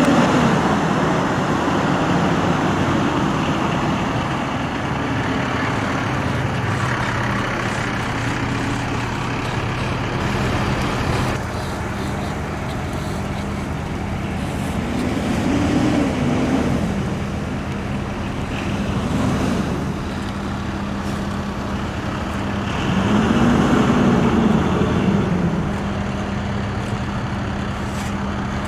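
A heavy vehicle's engine running steadily amid traffic noise, with three brief swells in the low engine note that rise and fall.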